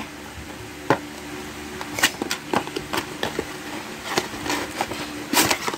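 Cardboard toy box being handled and opened: scattered clicks, taps and crinkles of card packaging, about eight of them, over a faint steady hum.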